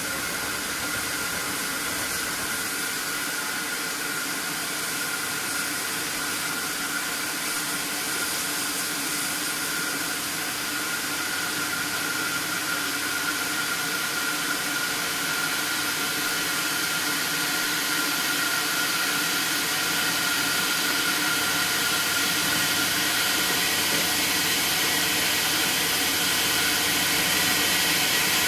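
2-6-0 steam locomotive No 9351 drifting slowly into a station with a steady hiss of steam, growing gradually louder as it approaches.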